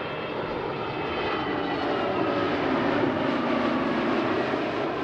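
Jet airliner on approach to land, its engines' roar and whine passing close, growing to its loudest about three seconds in and then easing slightly.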